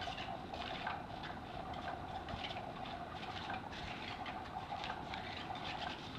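Small electric motor of a battery-powered cat toy running with a steady whir, its wand rustling and scraping irregularly under the fabric skirt.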